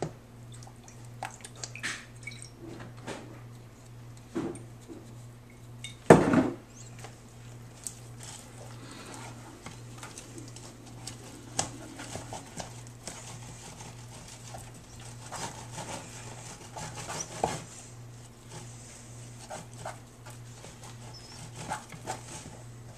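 A plastic spatula stirring and mashing thick bait dough in a plastic tub, with scattered light knocks and scrapes against the tub. There is one louder thump about six seconds in, over a steady low hum.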